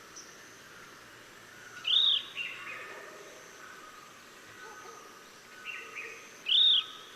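Chestnut-bellied nuthatch calling: two loud, arched notes that rise and fall, about four and a half seconds apart. Each is followed by a few softer notes. Faint thin tones run underneath.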